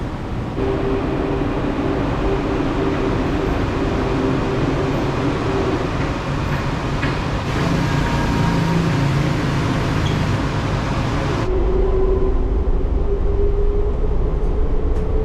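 Kuala Lumpur monorail train running: a steady rumble with a whine held at a few pitches, the whine rising slowly near the end as the train picks up speed.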